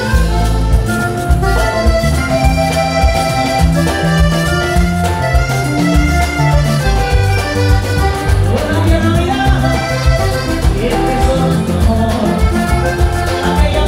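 Live vallenato band playing: button accordion carrying the melody over electric bass, congas and the steady scrape of a metal guacharaca, with a continuous driving beat.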